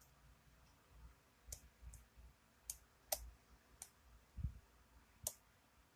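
Light metallic clicks and ticks of a lock pick working the pins of a pin-tumbler challenge lock under tension, about six scattered ticks, with one dull low knock midway through.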